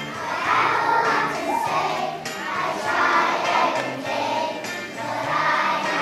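A class of young children singing a song together, with a musical accompaniment that has jingling percussion in it.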